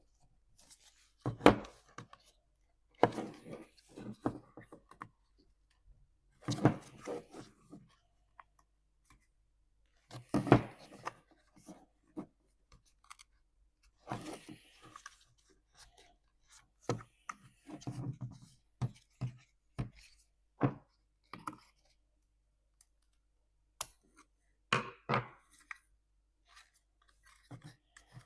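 Irregular knocks, clicks and scraping of parts and tools being handled during a dishwasher repair, with short quiet gaps in between.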